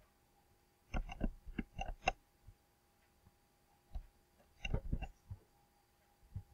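Light clicks and taps in two short flurries, one about a second in and another just before the five-second mark, with a few lone ticks between.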